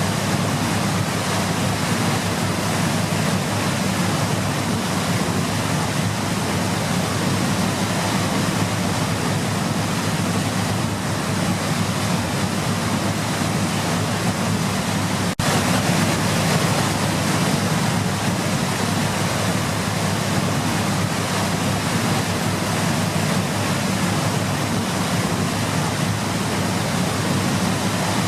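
Waterfall rushing in a steady, loud roar of falling water, with a momentary break about halfway through.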